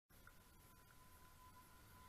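Near silence: a faint steady whine and low rumble from an approaching MBTA Green Line light-rail train, growing louder near the end.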